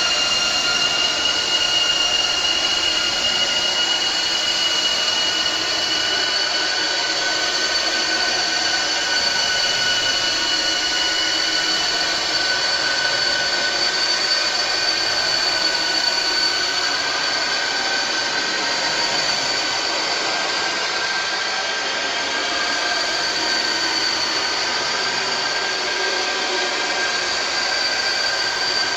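Horror sound effect: a steady grating noise with several high whining tones held over it, drifting slowly in pitch.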